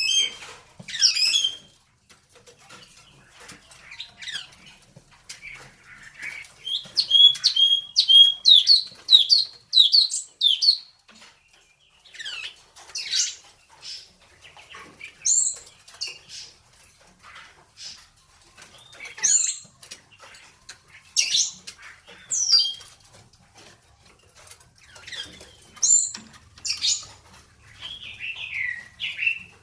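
A songbird singing a varied song of short, high whistled and chirping phrases separated by brief pauses, with a fast run of repeated notes about seven seconds in.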